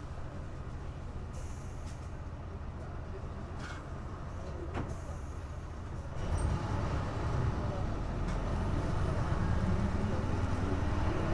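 Hino Blue Ribbon KC-HU2MMCA city bus engine heard from inside the bus. It runs at a low steady rumble, then about six seconds in it grows louder and rises in pitch as the bus accelerates.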